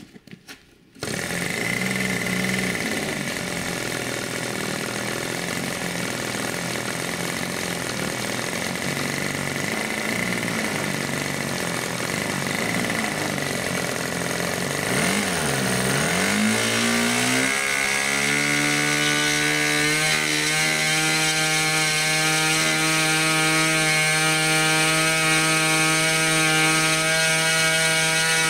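ASP 46 model-aircraft two-stroke engine (7.5 cc), converted to run on petrol, starts about a second in and runs with its propeller spinning. It runs rough at a lower speed at first, then a little past halfway dips and rises to a higher, steadier speed.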